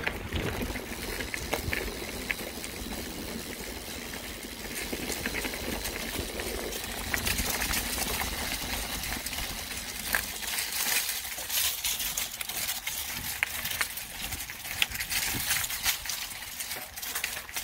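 Mountain bike ridden over a rough dirt trail, heard through a handlebar-mounted phone: tyre and trail noise with many small clicks and rattles from the bike. A low rumble of wind on the microphone is heavier in the first half.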